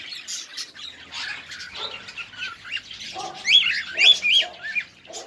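A group of small cage birds chirping together, a steady chatter of short up-and-down chirps that grows louder about three and a half seconds in, with a few harsher, lower squawks mixed in.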